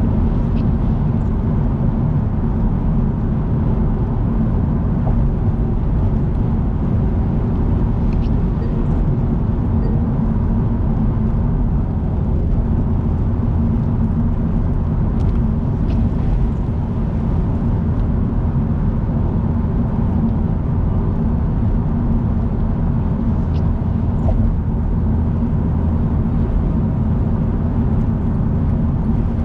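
Car driving at expressway speed: a steady low rumble of road and engine noise with a faint constant hum, unchanging throughout.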